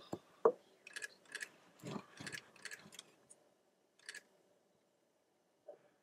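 Handling noise on a camcorder being moved: scattered light clicks and knocks, thickest in the first three seconds. The sound drops out completely for about a second and a half after a final click just past four seconds.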